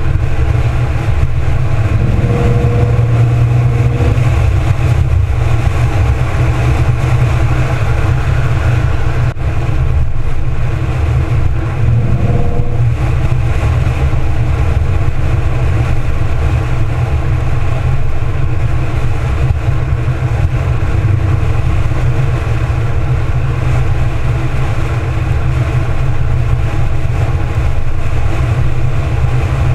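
A 2014 Ford Mustang's 3.7-litre V6 running as the car drives at road speed. Heavy wind rumble on the microphone of a camera mounted outside on the hood covers much of it.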